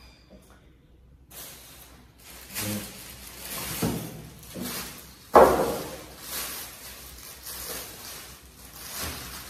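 Thin plastic shopping bag rustling and crinkling in bursts as groceries are pulled out of it, with one sharp, loud rustle or knock about five seconds in.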